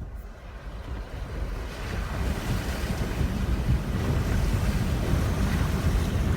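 Jeep Wrangler Rubicon pushing through deep river water: a steady rush and splash of water against the body over a low rumble, growing louder through the first couple of seconds and then holding.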